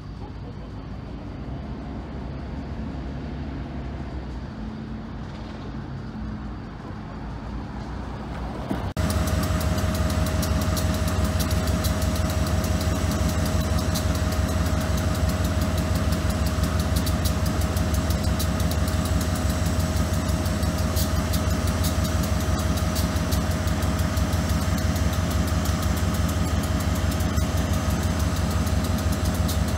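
GE B36-7 diesel locomotive's 16-cylinder engine running: fainter at first, then, after an abrupt cut about nine seconds in, close and loud as a steady deep drone with a constant whine over it.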